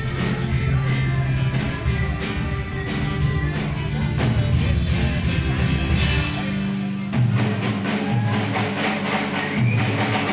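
Live band music from accordion and drum kit, with sustained accordion notes over a steady drum beat. A cymbal wash swells around the middle, and about seven seconds in the deep low notes drop away as the rhythm changes.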